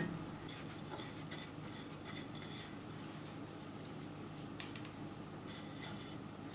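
Faint handling sounds with a few light clicks of crockery, the sharpest a quick pair about four and a half seconds in. The crockery is a small plate of spice mix being handled while the spice is sprinkled over minced pork.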